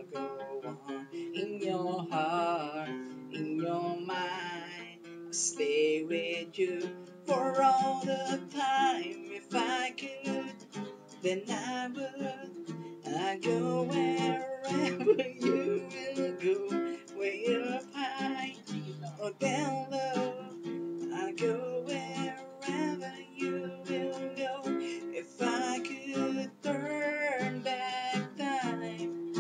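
Classical acoustic guitar strummed as accompaniment while young men sing a slow pop-rock song.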